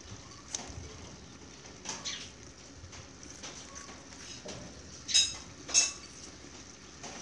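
Kitchen scissors and metal tongs cutting braised pork stomach over a stainless steel pot: light snips and clicks, then two sharp metallic clinks with a brief ring about five and six seconds in.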